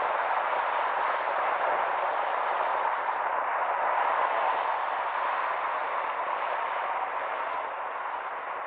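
Steady hiss of road traffic: cars driving through an intersection, tyres on asphalt, easing slightly near the end.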